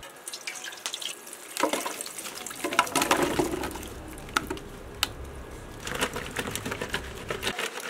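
Water and sliced raw potatoes tipped from a clay pot into a perforated aluminium colander: water splashing and draining through, with the slices knocking against the metal. Later the colander is moved to drain, with scattered clicks and a short run of rattling near the end.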